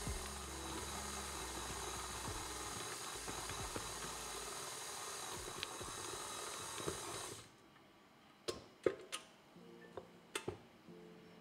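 KitchenAid Artisan tilt-head stand mixer running steadily as it kneads bread dough, switched off about seven seconds in. A few sharp clicks and knocks follow as the mixer head is raised. Soft background music plays underneath.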